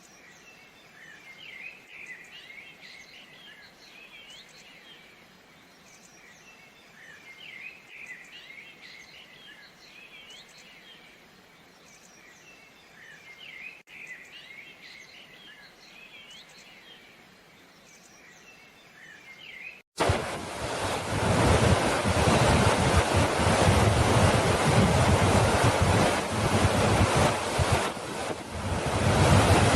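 A faint chorus of many small birds, chirping and twittering. About two-thirds of the way in, it cuts off suddenly and gives way to a much louder, steady rushing of ocean surf and wind, with wind buffeting the microphone.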